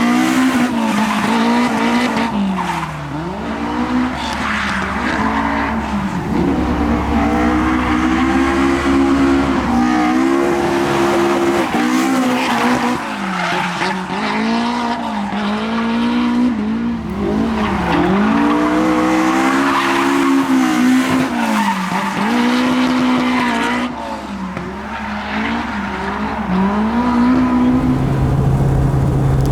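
Car engine revving hard, its pitch holding high, then dropping sharply and climbing back again and again every two to four seconds. Near the end it settles to a steady lower note.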